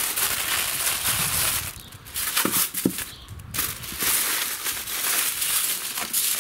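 Aluminium foil crinkling and rustling as it is folded and pressed tightly around a wrapped piece of meat, with a couple of short pauses near the middle.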